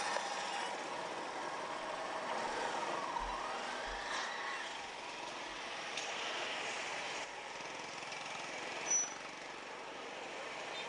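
Street traffic: motorbikes and cars passing, a steady hum of engines and tyres, with one passing vehicle rising and falling in pitch about three to four seconds in and a short high chirp near the end.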